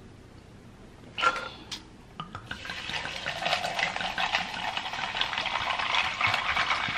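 Sparkling water poured from a glass bottle into a tumbler, fizzing and crackling, louder as the pour goes on from about two and a half seconds in. A few short clicks come just before it.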